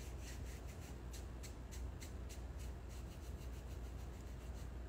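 Faint rubbing and scratching, many light irregular scrapes, over a low steady hum.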